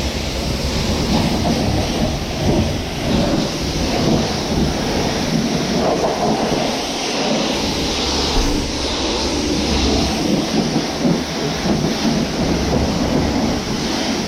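Vehicle driving, heard from inside the cab: a steady rumble of engine and road noise with choppy rattling over it.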